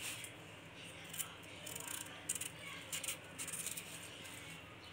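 Raw green banana being peeled with a small knife over a plastic bag: scattered faint clicks, scrapes and rustles of peel and bag.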